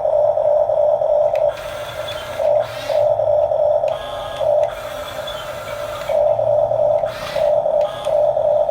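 Huina 1569 remote-control bulldozer's small electric drive motors and gearboxes whining as it drives, the whine cutting in and out every second or so between spells of rasping hiss.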